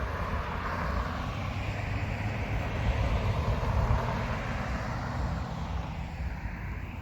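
A vehicle passing on a nearby road: a rushing road noise that swells over the first few seconds and fades near the end, over a steady low rumble.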